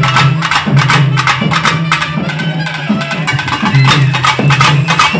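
Pambai drums, the Tamil paired cylindrical drums beaten with sticks, playing a fast, dense rhythm of sharp strokes over a deep drum tone for a folk stilt dance.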